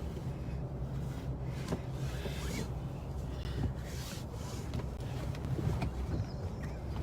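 Car seatbelt webbing being tugged and rubbed, a series of short rustles and scrapes at irregular intervals, over the steady low hum of the moving vehicle.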